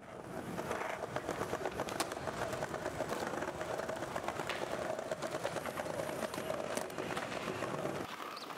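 Skateboard wheels rolling steadily over smooth pavement, with a few sharp clicks along the way; the low rumble thins out near the end.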